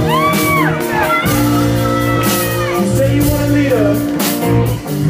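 Live rock band playing: electric guitar over bass and drums, with lead lines that bend up in pitch, hold and fall back.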